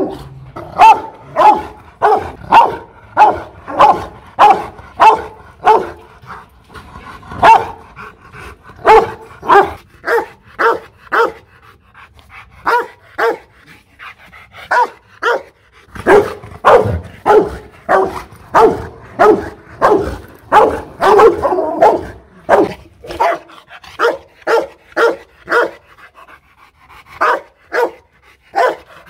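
Rottweiler barking aggressively in runs of about two barks a second, with short breaks between runs.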